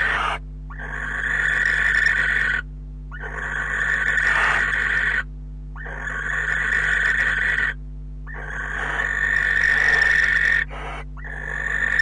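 Barn owl giving a steady series of long, rasping hiss calls, each about two seconds long, swelling and then cutting off abruptly, with short breaks between them. This is the barn owl's 'snoring' call, used in courtship and begging at the nest.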